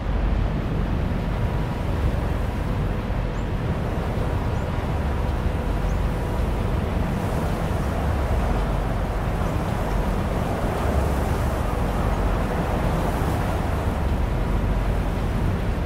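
Strong steady wind with a deep rumble, over the wash of choppy open water; a faint steady hum lies underneath.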